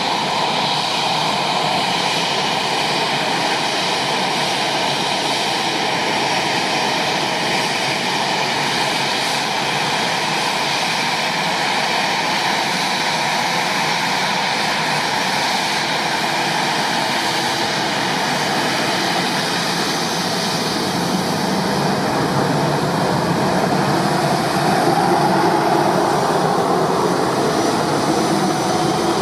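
Jet airliner engines running, a loud steady noise that swells a little near the end.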